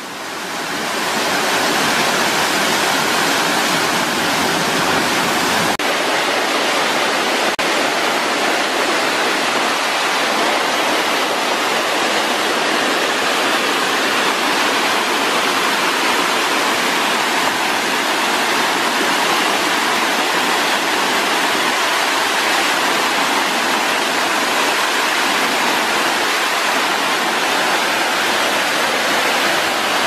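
A waterfall pouring into a rocky pool, its water rushing in a steady, loud, unbroken hiss that fades in over the first second or two.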